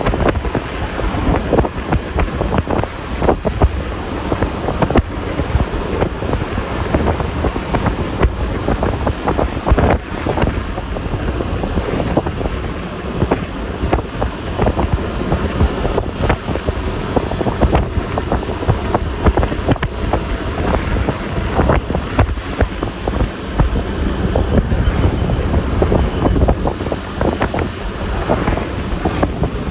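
Wind buffeting the microphone of a moving scooter, over the rushing road noise and engine of a Yamaha Lexi LX 155 riding along.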